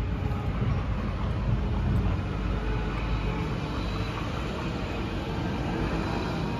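Steady low rumble of a heavy vehicle's engine running.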